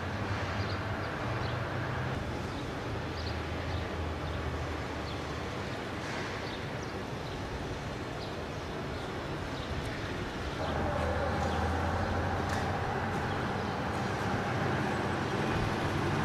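Steady machinery noise with a low hum and scattered light clicks. About ten seconds in, a steady higher tone joins and the noise gets a little louder.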